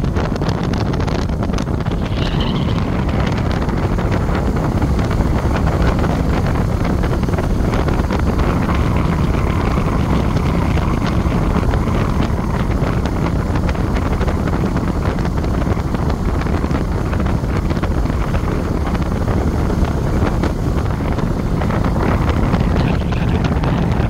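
Wind rushing over the microphone of a moving vehicle, a steady loud rush mixed with road noise. A short high tone sounds once about two seconds in.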